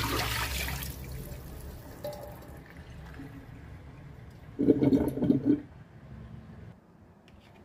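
Water poured from a stainless steel pot splashing into a sink drain, loudest at the start and tapering off within about two and a half seconds. A brief louder sound follows about five seconds in.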